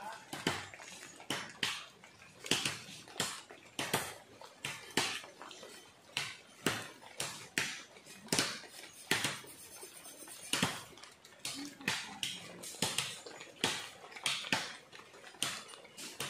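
Repeated sharp knocks of a tool striking a joint in a wooden pole frame, about two a second, with a short pause a little past the middle.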